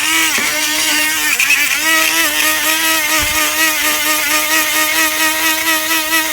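Vintage Kmart 12-volt battery-powered spark plug cleaner running, a loud steady buzz with a hiss of sand scouring a fouled, greasy mower spark plug. Its pitch wobbles for the first two seconds, then holds steady.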